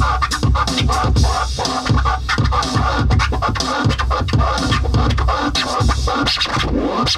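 Electronic beat played on a Maschine groovebox: a steady kick drum about twice a second with turntable-style scratching over it.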